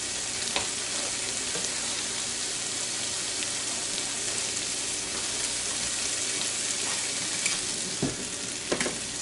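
Spam with diced tomatoes, green chilies and peas sizzling steadily in an 8-inch Copper Chef square pan on a glass-top stove burner. A few light clicks come near the end.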